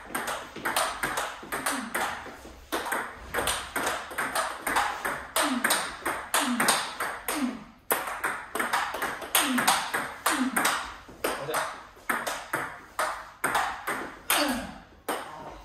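Table tennis rally: the ball clicking in quick alternation off the paddles and the table, with a brief lull about halfway through.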